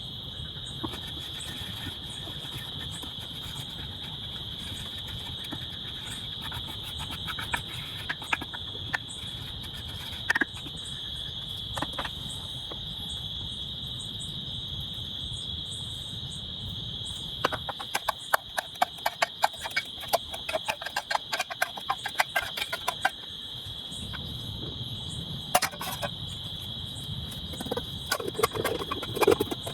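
Crickets trilling steadily in one high, unbroken band, with a low rushing noise underneath. About two thirds of the way through comes a quick run of sharp clicks and taps lasting several seconds, with scattered single clicks elsewhere.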